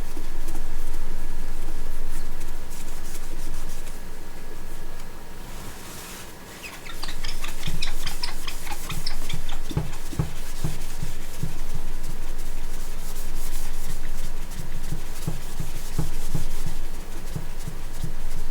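A towel rubbing and scrubbing across the printer's screen with denatured alcohol to dissolve leftover resin. It turns into quick repeated back-and-forth strokes with light knocks from about seven seconds in.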